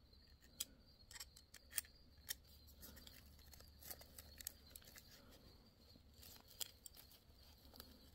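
Faint, irregular small clicks and scrapes of metal and plastic as a steering-wheel airbag module is handled and tilted to work a loose rivet free, over a low steady hum.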